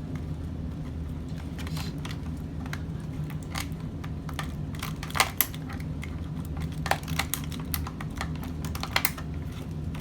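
Toy packaging being worked open by hand: scattered sharp clicks and crackles of cardboard and plastic, a few louder snaps about five, seven and nine seconds in, over a steady low hum.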